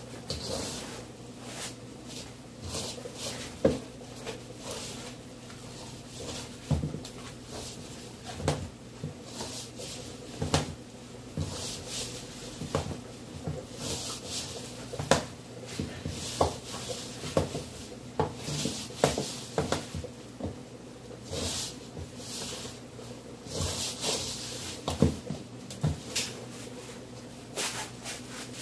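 Hand mixing flour and water into dough in a stainless steel mixing bowl: irregular knocks and taps as the hand and bowl bump about, with soft rubbing swishes from the dough and flour.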